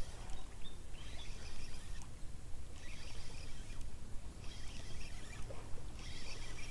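Ryobi Smurfs 1000 spinning reel being cranked in short bursts of about a second with brief pauses between, a light gear whirr each time, as a small hooked fish is reeled in on a bent ultralight rod.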